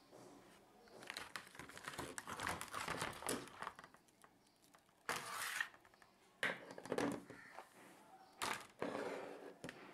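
Clear plastic blister packaging crackling and clicking as a hand riveter is handled and lifted out of it. It is a dense run of crackles at first, then several shorter separate bursts and a sharp click near the end.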